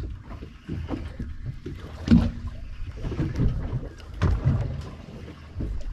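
Waves slapping against a small boat's hull, with wind on the microphone; the louder slaps come about two seconds in and again just after four seconds.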